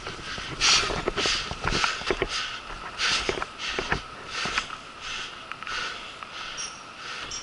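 Footsteps crunching on dirt and gravel, about two steps a second.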